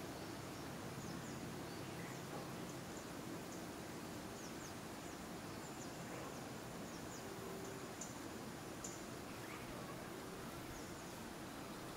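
Forest background sound: a steady low hiss with many faint, short, high chirps scattered throughout.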